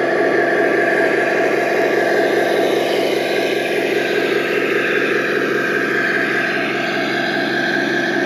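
Tamiya 1/16 King Tiger RC tank running steadily: a continuous engine-like drone with a higher whine above it.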